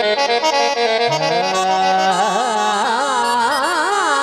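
Live Punjabi folk music: a reedy instrumental melody in quick stepped notes, joined about a second in by a steady low drone, then from about halfway a male voice singing a long, wavering held note with heavy vibrato.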